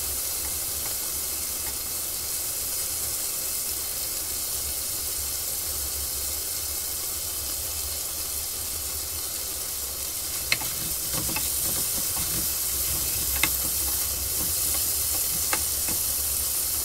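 Beef cubes sizzling as they brown in hot oil in a frying pan, a steady hiss. In the second half there are a few sharp clicks of a utensil against the pan as the pieces are turned, and the sizzle grows a little louder.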